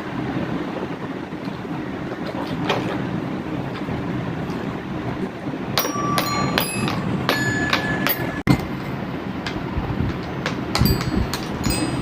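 Xylophone bars struck one at a time at different pitches, each note ringing briefly, starting about six seconds in. Under them is a steady low rumble, with a few handling clicks before the playing begins.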